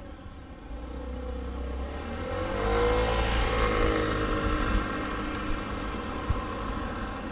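A motor vehicle passing close by: its engine and road noise swell over the first few seconds, peak about three seconds in with the engine pitch dropping as it goes past, then slowly fade.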